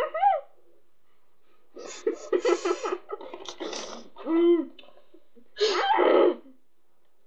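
Short bursts of muffled laughter and breathy vocal noises from two children whose mouths are stuffed with marshmallows, with no clear words. The bursts come in three or four spurts, the last one near the end being among the loudest.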